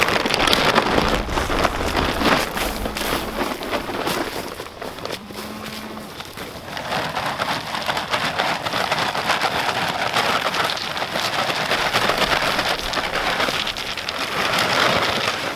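Freezing rain pattering close by: a dense, steady crackling patter of drops and ice, a little quieter about four to six seconds in.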